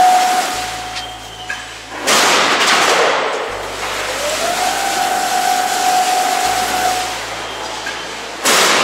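Roll-forming line for profiled steel sheet running as a steel coil unwinds through the forming rollers. A steady machine whine fades out, then rises and holds again, and two loud, sudden noisy bursts come about six seconds apart.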